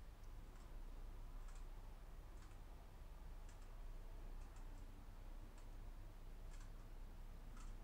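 Faint, irregular metallic clicks of a turbodecoder lockpicking tool being worked in a lock, over a low steady hum.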